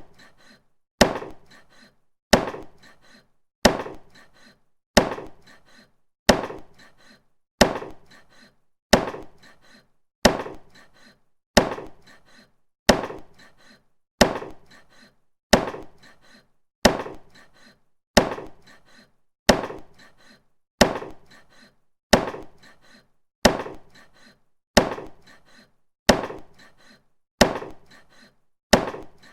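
Butcher's meat cleaver chopping meat in single hard blows, one about every 1.3 seconds, each dying away over about a second.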